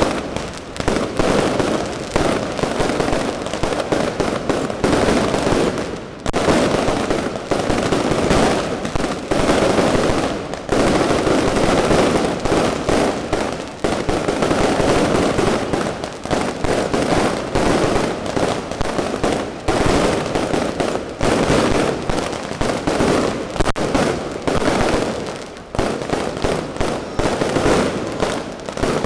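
Fireworks going off in a dense, continuous barrage of rapid bangs and crackles, easing only briefly every few seconds.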